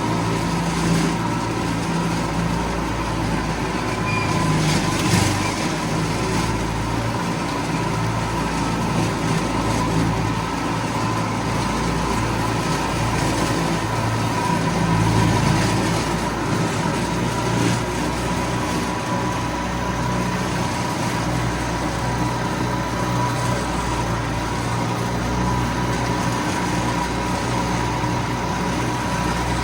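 Tractor engine running steadily while pulling a wide finish mower through grass, the mower running along with it.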